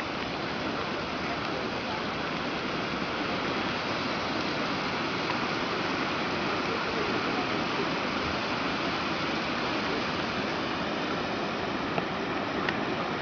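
Fast-flowing floodwater rushing, a steady even noise, with a couple of faint clicks near the end.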